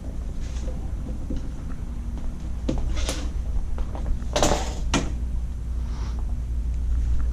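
Metal knocks and clanks from a full electric hospital bed's frame being pushed down and pulled up to separate its sections, with the loudest clatter of two knocks about four and a half seconds in.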